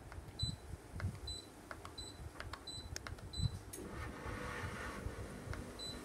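Sharp split air conditioner's indoor unit giving short high beeps, about one every 0.7 seconds, as it accepts each press of the remote, with faint clicks of the remote's buttons. A short hiss of air comes in about four seconds in.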